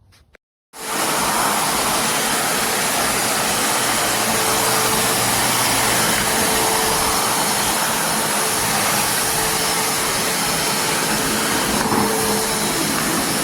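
DEWALT DXV05S 4-peak-HP stainless steel wet/dry shop vac running, a loud steady motor and airflow roar with a faint hum. It comes on abruptly under a second in.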